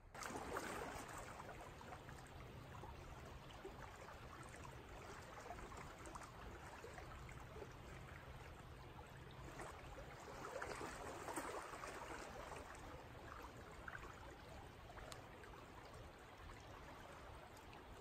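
Faint, steady rush of flowing creek water, swelling a little near the start and again about ten seconds in.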